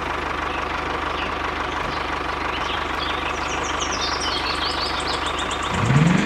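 Tractor engine running at a steady idle with a fast, even low rumble; its pitch rises briefly just before the end. High chirps sound faintly over it.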